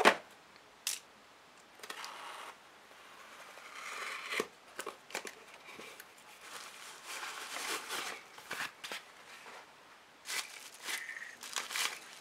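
A cardboard box being opened by hand: a sharp knock at the start, then scraping and rustling as the taped flaps are worked open, and crinkly rustling of foam wrap being pulled out, with scattered taps and clicks.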